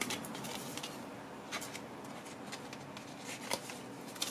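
A handful of soft clicks and rustles from paper and cardboard packaging being handled, spaced irregularly over quiet room tone, the clearest about three and a half seconds in.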